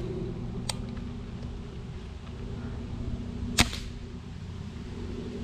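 A Weihrauch HW90K 4.5 mm gas-ram (Theoben-patent) air rifle firing once: a single sharp shot about three and a half seconds in, after a faint click near the start. The shooter judges the gas ram lightly charged, at around 220 m/s. A steady low hum runs underneath.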